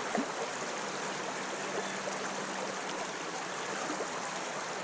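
Creek water flowing over a shallow riffle, a steady rushing with small gurgles throughout.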